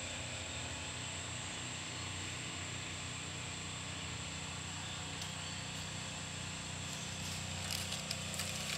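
Steady low mechanical hum with a thin high whine above it, and a few light clicks near the end.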